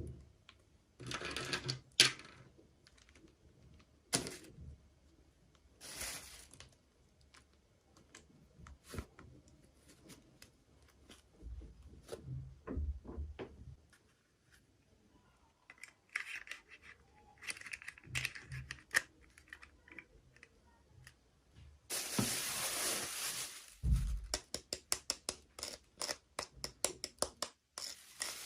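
Plastic packaging being handled during an unboxing: crinkling and rustling in short spells, with scattered clicks and taps of small plastic pieces. A longer stretch of crinkling comes a little over twenty seconds in, followed by a quick run of clicks.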